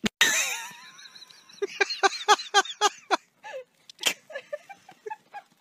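A person laughing in a quick run of 'ha' bursts, after a short high-pitched squeal at the start, with one sharp knock about four seconds in.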